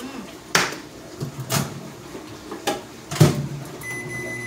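Microwave oven door and plate handling: a few sharp knocks and clicks, the loudest a thud about three seconds in. Near the end comes one steady electronic beep from the microwave's keypad.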